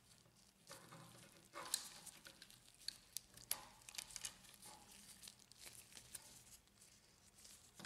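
Near silence with a few faint, short clicks and rustles as gloved fingers pull the thermal fuse cables out of the plastic fuser frame.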